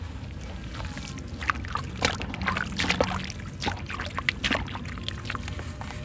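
Dry sand-cement chunks crumbled by hand, the grit and crumbs falling and splashing into a basin of water. A quick run of crisp crunches and crackles comes in the middle.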